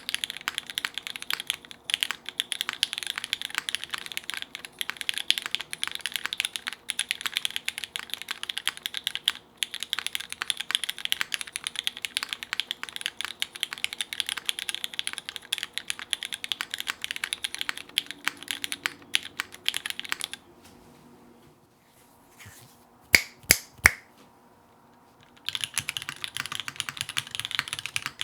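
Fast, steady typing on a custom KFE CE mechanical keyboard with MX Hyperglide Black linear switches, a polycarbonate plate and GMK keycaps. About two-thirds of the way in the typing stops, three sharp, loud clicks sound in quick succession, and then fast typing starts again.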